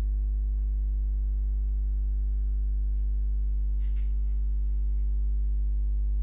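Steady electrical mains hum in the recording, a constant low buzz with many overtones. A faint brief mouth or breath sound comes about four seconds in.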